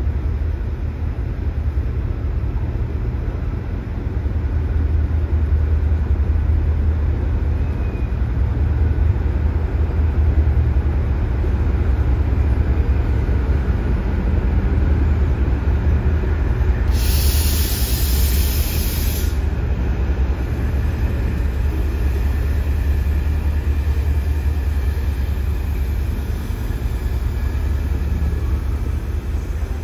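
A pair of DRS Class 68 diesel-electric locomotives with Caterpillar V16 engines pass slowly, their engines running with a steady deep drone. About seventeen seconds in, a loud hiss of air lasts about two seconds.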